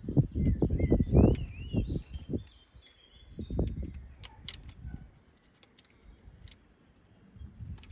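A run of irregular low knocks and rumbles in the first couple of seconds and again briefly a little later, with small birds chirping over it; the rest is quieter, with a few light clicks.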